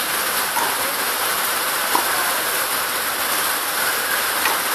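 A steady hiss throughout, with a few faint sharp pops of a tennis ball struck by a racket, about a second or two apart, during a baseline rally.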